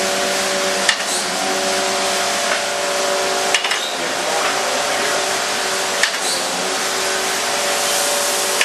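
Mattison hydraulic surface grinder running, its grinding wheel spinning and table traversing: a steady hiss and hum with a few steady tones, broken by a short click about every two and a half seconds.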